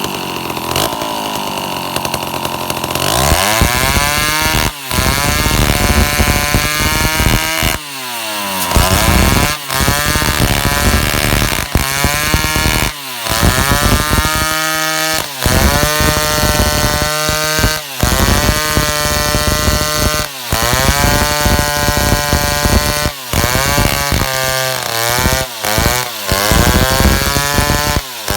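Stihl two-stroke chainsaw running low for the first few seconds, then revving up and cutting wood, eucalyptus. The engine climbs in pitch, holds at high speed and drops back over and over, about every two to three seconds, with brief dips between cuts.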